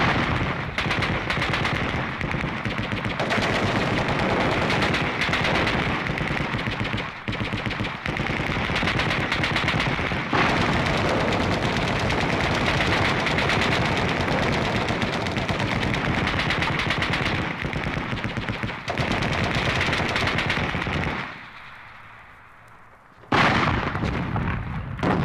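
Recorded machine-gun fire from a stereo sound-effects record: a long run of very rapid shots with a few short breaks. It dies away near the end, then one last short, loud burst.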